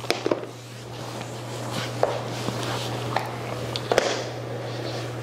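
Shoes and slide sandals being handled and set down on a wooden floor: a handful of light knocks and soft rustling, over a steady low hum.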